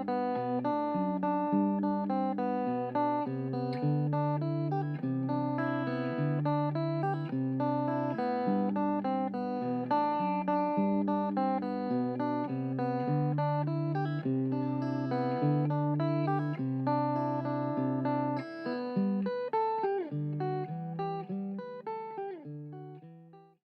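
Background music of plucked guitar with strummed chords in a steady rhythm, fading out near the end.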